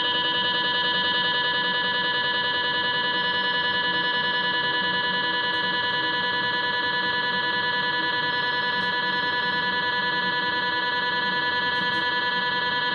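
GE MRI scanner's gradient coils buzzing during a sagittal LAVA dynamic (3D fast spoiled gradient-echo) pelvis scan: a loud, steady, rapidly pulsing tone with many overtones.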